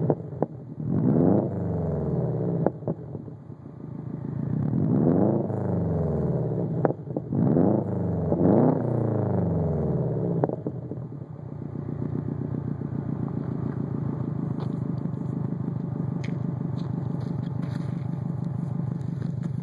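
Subaru Legacy GT's turbocharged 2.5-litre flat-four, stage 2 tuned, through a custom single-exit exhaust: revved in a series of quick throttle blips, with a few sharp cracks as the revs drop, then settling to a steady idle about eleven seconds in.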